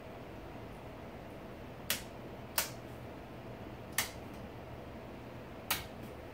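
Four sharp clicks, spaced unevenly over a few seconds, from the switches on a siren and light control box being flipped to shut off the lightbar's functions one by one. A steady low hum runs underneath.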